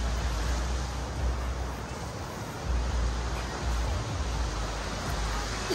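Wind buffeting the microphone in uneven low gusts over a steady wash of beach surf.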